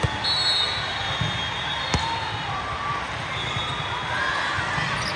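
Indoor gym sound at a volleyball match: a single sharp ball hit about two seconds in over steady crowd chatter, with a few short high squeaks near the end.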